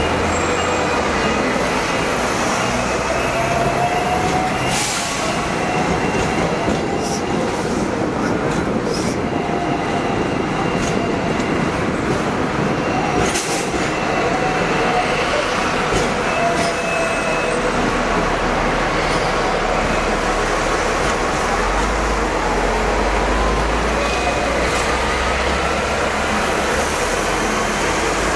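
Hong Kong double-decker electric tram running along street track, heard from on board the upper deck: a steady rattling rumble, with a whine that rises and falls in pitch and a few sharp clicks. The low rumble grows heavier in the second half.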